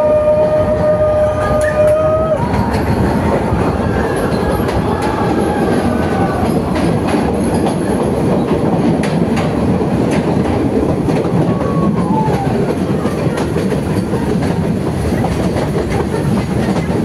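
Passenger train running through a tunnel, heard from inside a coach: a loud steady rumble and rattle of wheels on rail with clicks from the track. A held steady tone stops sharply about two seconds in, and brief squeals come and go later.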